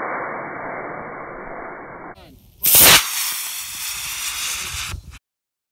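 Estes model rocket motor launching: a muffled rushing noise, then, after a cut, a very loud, sudden burst about two and a half seconds in as the motor fires and the rocket leaves the pad, followed by a fading hiss. The sound stops abruptly about five seconds in.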